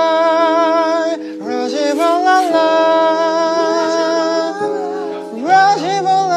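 A man singing drawn-out nonsense syllables in long held notes that slide up and down in pitch, over sustained chords on an electronic keyboard. A loud rising phrase comes near the end.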